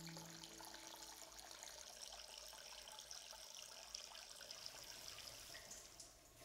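Water running from a tap in a thin stream into a basin, faint and steady, stopping near the end. A low held tone fades out in the first half second.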